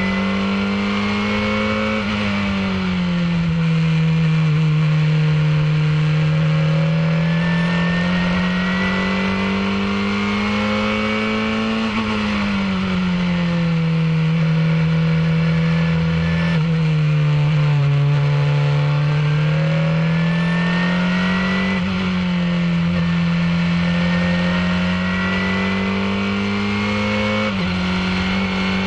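Formula 2000 open-wheel race car's engine running hard at race speed, heard from an onboard camera with wind rushing past. The note climbs slowly, falls away about two seconds in and again about twelve seconds in, and takes a quick step down near the end.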